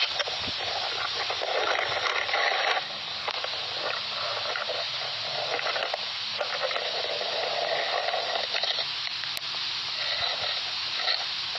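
Uneven sloshing and rustling noise of someone wading through shallow water at night, swelling and easing without any clear rhythm.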